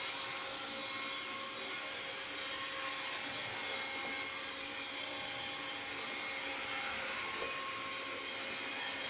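Xiaomi robot vacuum running in wet-mopping mode, a steady whir with a faint high hum from its fan and motors.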